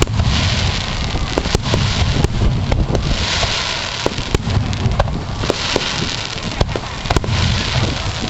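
Aerial fireworks bursting in quick succession: many sharp cracks over a continuous crackling hiss and a low rumble.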